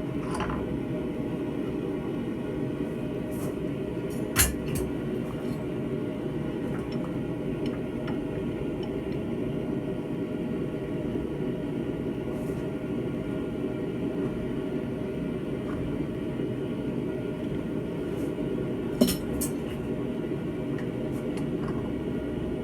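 Steady low rushing noise of a blacksmith's forge, with two sharp metallic clinks, one about four seconds in and one near the end, as the hot railroad-spike steel is handled.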